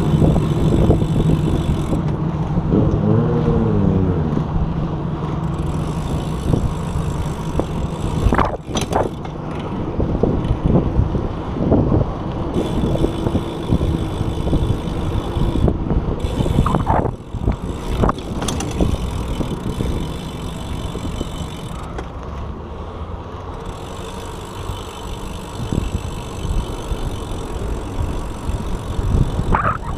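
Wind rushing over an action camera's microphone while cycling into a headwind, with steady road rumble and a few sharp knocks from bumps along the way.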